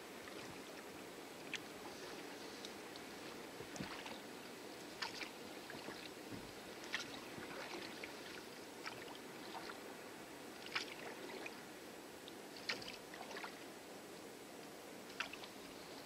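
Rowing a small rowboat with a pair of oars through shallow lagoon water: a short sharp splash at each stroke, about every two seconds, over a steady wash of water against the hull.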